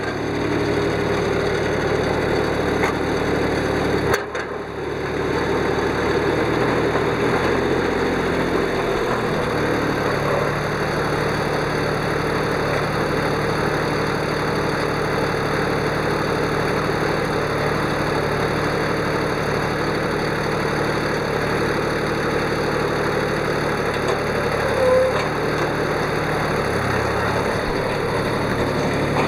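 Mitsubishi MTE2000D compact tractor engine running steadily, with a brief dip about four seconds in and a change in engine pitch a few seconds later as the tractor moves off.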